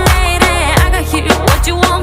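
Background music: a pop/R&B-style track with a steady beat, heavy bass and a melodic vocal or synth line.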